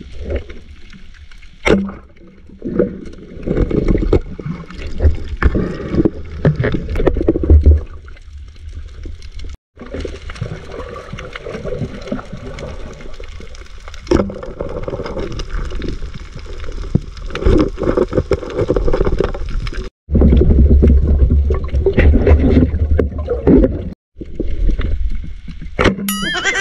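Muffled rush and gurgle of water around a submerged camera during a night spearfishing dive, surging and ebbing with the diver's movement. It is broken by a few sudden brief drop-outs.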